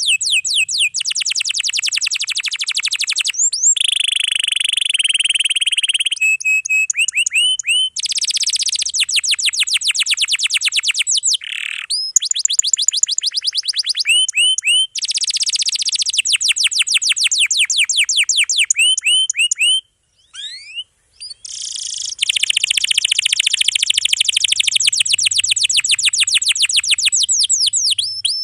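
Domestic canary singing long, fast rolls: runs of rapidly repeated high notes strung together into trills, one after another. The song breaks off briefly about twenty seconds in, then resumes.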